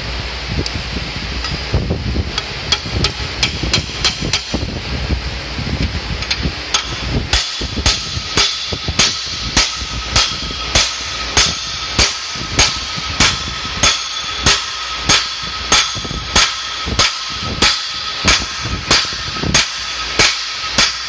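A bushing is driven into its bore in an engine block with a steel driver rod, taken by hammer blows. After some lighter, uneven knocks, steady strikes come about twice a second from about seven seconds in, each with a ringing metallic clang.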